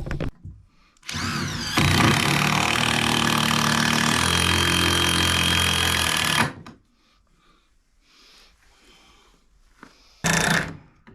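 Power drill driving a screw into 2x4 framing: the motor spins up about a second in, runs for about five seconds with its pitch dropping partway as it takes load, then stops. A second short burst follows near the end.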